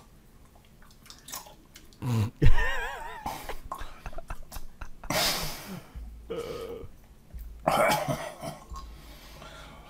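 A man's throat noises as he chugs thick Elmer's glue from a squeeze bottle: gulps, gurgles and wavering, strained grunts. A sudden thump about two and a half seconds in is the loudest sound.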